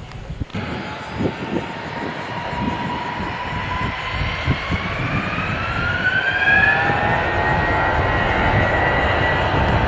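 Airliner engines whining and running up. A noisy rumble cuts in about half a second in, then a whine rises in pitch and grows steadily louder, as a plane spools up or approaches.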